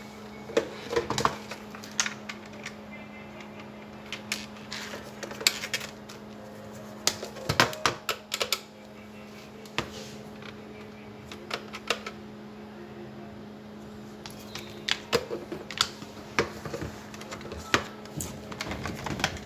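Telephone keypad buttons and handset being worked while the phone line is tested: many sharp clicks at an irregular pace, some close together in short runs. A steady low hum runs underneath.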